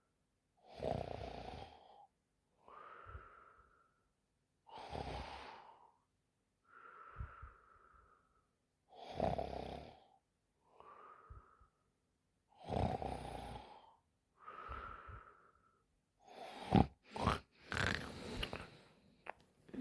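A sleeping woman snoring in a steady rhythm, about one breath cycle every four seconds: a loud rasping snore alternating with a softer breath that carries a faint whistle. Near the end the rhythm breaks up into a cluster of short, sharp sounds.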